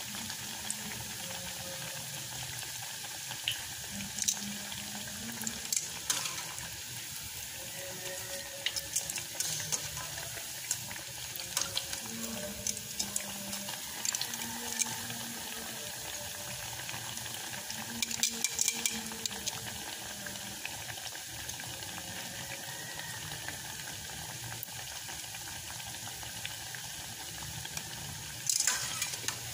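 Breaded tuna pies deep-frying in hot oil in a stainless steel pot: steady sizzling with scattered pops and crackles, and a louder burst of crackling near the end.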